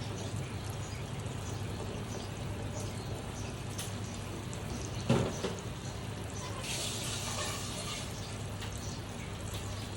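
Yogurt-marinated chicken frying slowly in mustard oil in a frying pan: a steady, watery sizzle. A utensil knocks once against the pan about five seconds in, followed by a brief louder hiss.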